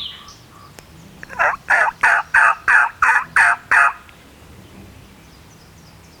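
Turkey yelping: a run of about eight evenly spaced yelps, roughly three a second, starting about a second in and lasting about two and a half seconds.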